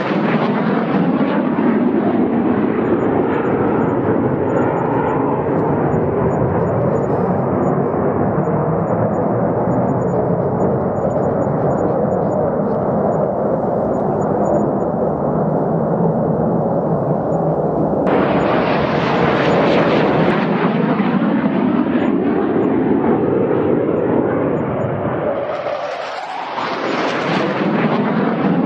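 Fighter jets passing overhead: a loud, steady jet roar whose hiss fades as the aircraft moves away. About 18 s in the sound changes abruptly to another loud pass. It dips briefly about 26 s in before a further jet passes close near the end.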